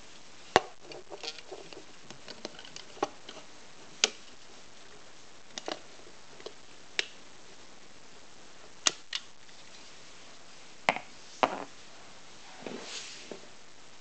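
Irregular sharp clicks and snaps of plastic Lego parts from a Lego crossbow pistol being handled and worked, with a soft rustle near the end.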